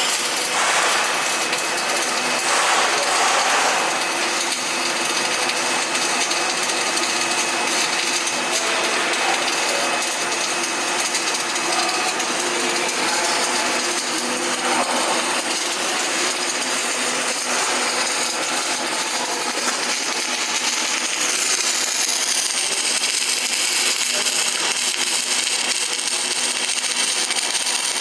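Continuous machine noise in a welding shop: a steady hiss with several steady tones running through it, and high sliding tones near the end.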